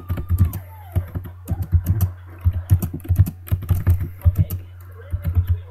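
Typing on a computer keyboard: irregular runs of keystroke clicks with brief pauses, over a steady low hum.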